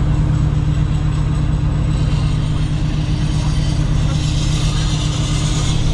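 A car's engine running steadily, heard from inside the cabin, with a hiss of road and wind noise that grows from about two seconds in as the car moves along.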